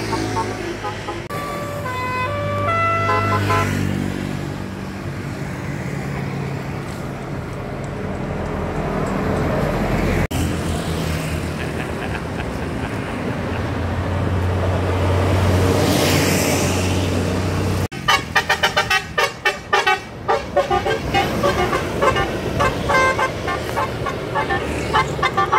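Tour bus 'telolet' musical horn playing a quick run of stepping notes, followed by a heavy vehicle's engine running and passing by with road noise. After a sudden cut about 18 s in, a fast series of pulsing horn tones.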